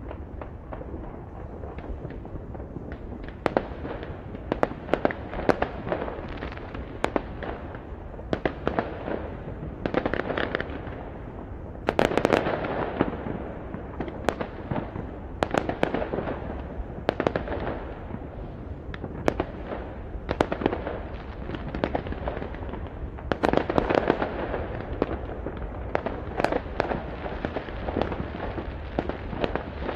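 New Year's fireworks and firecrackers going off across a city. There are many sharp bangs and pops, some single and some in quick clusters, over a steady background of distant crackling and rumbling.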